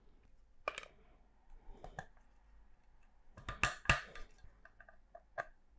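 Clear plastic display-stand parts clicking and tapping together as they are fitted by hand, with a cluster of sharper clicks about three and a half seconds in.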